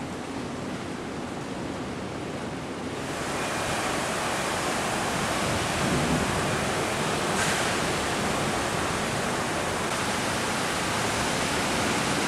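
Heavy rain pouring down in a steady hiss, growing louder about three seconds in.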